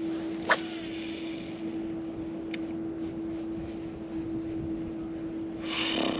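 Steady hum of a bass boat's bow-mounted electric trolling motor, with a rod cast about half a second in: a sharp swish (the loudest moment), then the reel spool whirring briefly as line pays out. A single click comes about two and a half seconds in, and a short rustle near the end.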